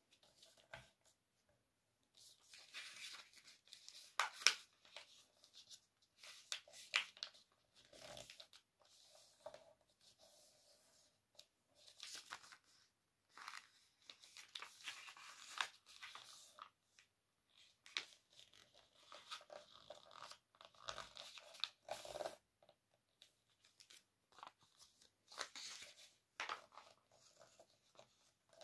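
A sheet of paper being folded and creased by hand: irregular rustles and crinkles of paper, with short pauses between them.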